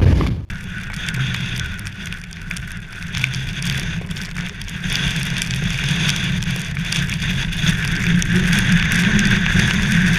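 Storm-force wind blowing over the microphone: a steady rush with constant fine crackling, growing a little louder over the seconds.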